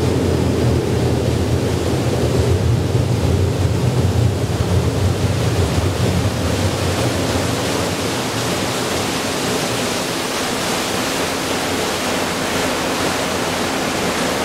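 Steady rushing of wind and water aboard a moving boat, with a low engine drone that weakens about halfway through.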